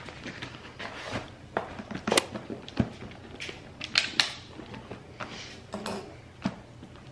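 Rustling and a series of sharp knocks and clicks as a laptop, papers and a charger with its cord are packed into a woven tote bag.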